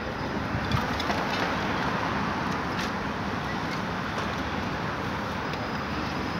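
Steady hum of city road traffic heard from high above the street, with a few light clicks.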